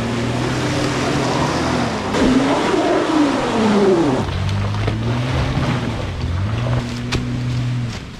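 Drone-flight sound effect: a steady, loud electronic hum, with several tones sweeping downward in pitch between about two and four seconds in before the hum settles again.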